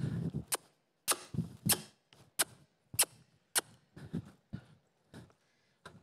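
Rhythmic knocks and thumps, about one every 0.6 seconds: the jolts of a young mare's strides as she lopes and bucks under the rider, picked up by his body-worn microphone.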